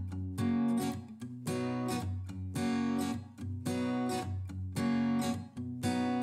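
Background music of a steadily strummed acoustic guitar, about two strokes a second.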